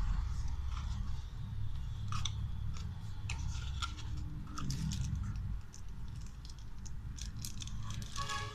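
Plastic packaging and small accessories being handled and unwrapped: a run of short clicks, crinkles and scrapes, over a steady low hum.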